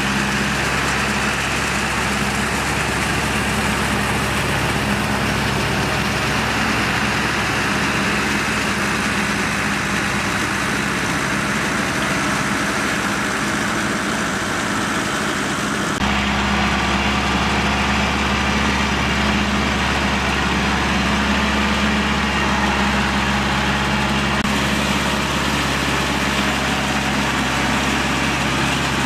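Compact farm tractor's diesel engine running steadily under load while its rear rotary tiller churns a flooded rice paddy. The engine note shifts abruptly about halfway through to a second tractor's slightly deeper, louder drone.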